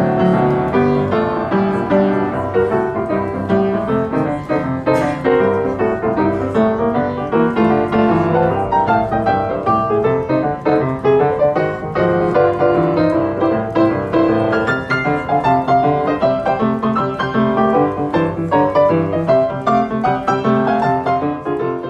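Boogie-woogie played live on a Kawai upright piano: a steady, unbroken stream of fast notes.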